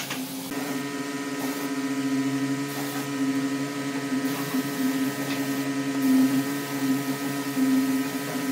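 Steady machine hum with several fixed tones, setting in about half a second in and holding steady.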